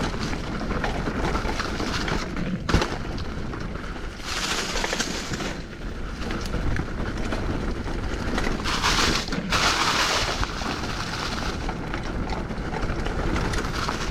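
Hardtail mountain bike rolling fast down rocky dirt singletrack: steady tyre-on-trail rattle with wind rumbling on the mic, and a sharp knock about three seconds in. Two louder hissing stretches come around four and nine seconds in.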